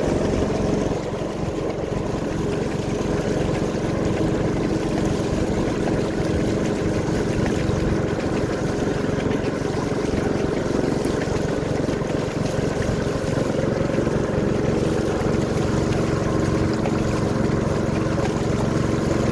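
Small motor of a wooden dugout canoe running steadily at an even pitch, driving the canoe along, with water and wind noise underneath.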